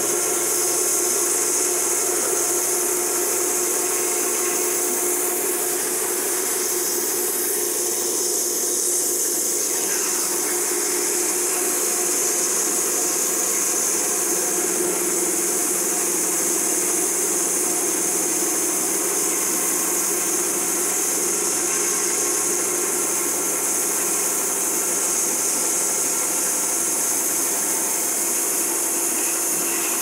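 Logosol B1651 band sawmill sawing lengthwise through an elm log: the motor and carbide band blade run steadily under load as the saw head travels along the cut.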